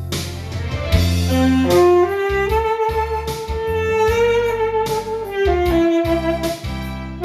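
Instrumental music: a lead melody instrument holding long notes and sliding between them over a backing track with steady bass.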